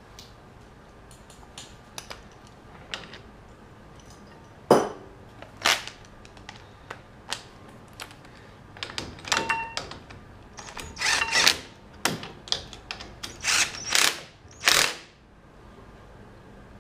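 Cordless drill/driver running the brake caliper's mounting bolts in with a series of short bursts, some with a brief motor whine, starting about nine seconds in. Before that, light clicks and a couple of sharp knocks from tools and parts being handled.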